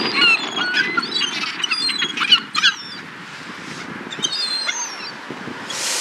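A flock of gulls calling over one another: many short, high cries with quick rises and falls in pitch, busiest in the first three seconds and again around four to five seconds in, over a steady low rumble.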